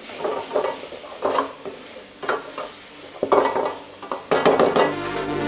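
Metal ladle scraping and clattering in a steel wok, about once a second, as a tomato and chilli sauce is stirred and sizzles in the pan. Background music comes in near the end.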